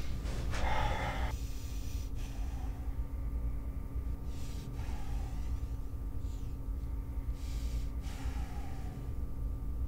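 A man breathing hard with effort while doing push-ups: three sharp exhales, about a second in, near the middle and near the end, over a low steady hum.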